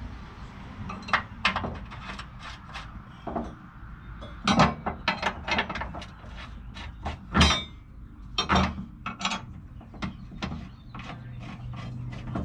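Hand tools working on an engine: irregular metallic clicks and knocks in quick strokes, with a few louder clanks about four and a half, seven and a half and eight and a half seconds in.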